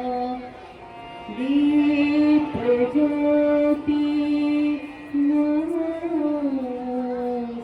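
A woman singing long held notes in an Indian classical, Carnatic-like style, with a short pause about a second in.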